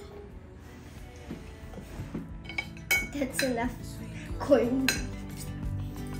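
Metal spoons and forks clinking and scraping against ceramic serving dishes and plates as food is served. A string of clinks starts about two seconds in, the loudest in the middle.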